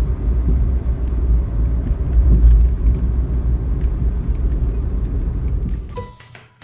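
Suzuki Wagon R being driven on the road: a steady low rumble of road and engine noise. It fades out about six seconds in as a few music notes begin.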